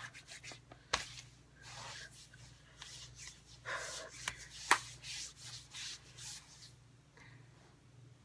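Hands handling small objects: rustling and rubbing, with a few sharp clicks.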